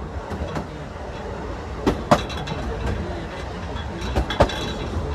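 Narrow-gauge railway coach rolling along the track: a steady low rumble with clanking from the wheels and couplings, including a pair of sharp clanks about two seconds in and another near the end.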